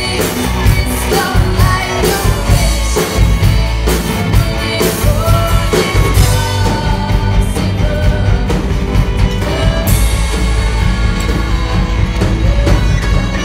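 Live rock band playing a song, with steady drum hits under amplified instruments and a singing voice.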